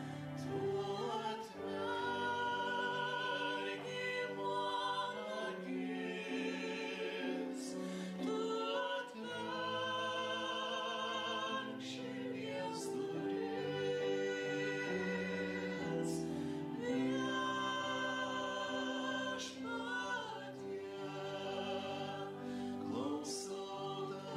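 A woman sings a slow Lithuanian Catholic hymn in a classical style, with vibrato on long held notes, over steady instrumental accompaniment.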